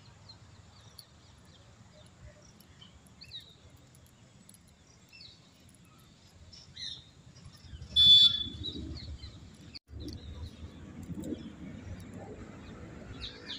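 Birds chirping on and off in short high calls, with one short, loud shrill call about 8 s in; after that a low rumble runs under the chirps.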